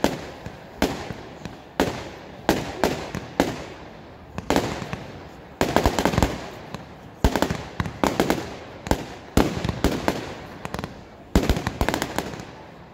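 Consumer firework batteries firing: shots launching and bursting in quick clusters, about one or two bangs a second, each followed by crackling that trails off.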